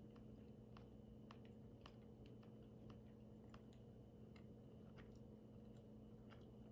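Near silence: faint steady room hum with soft clicks at irregular intervals.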